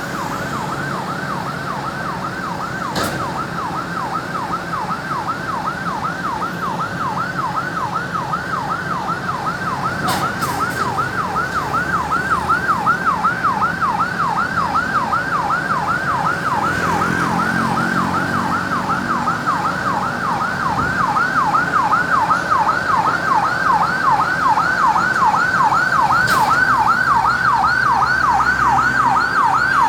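Ambulance siren on a fast yelp, its pitch sweeping up and down about three times a second and growing louder partway through.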